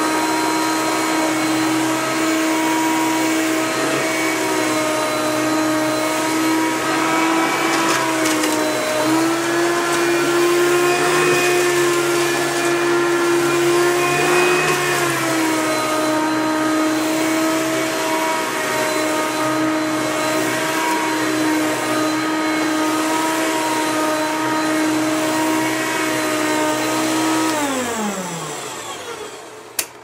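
Hoover PowerMax upright vacuum cleaner running with a steady motor whine while vacuuming up pieces of rotted acorn. Its pitch steps up about a third of the way through and drops back a few seconds later. Near the end it is switched off and the motor winds down, its pitch falling.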